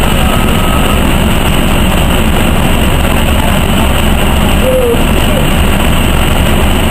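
Inside a NovaBUS RTS city bus standing still with its engine idling: a loud, steady low drone under a constant hiss.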